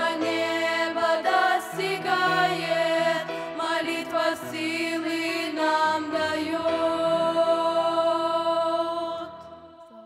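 A group of young women singing a Russian hymn in close harmony over a low accompaniment. About seven seconds in they hold a final chord, which fades out near the end.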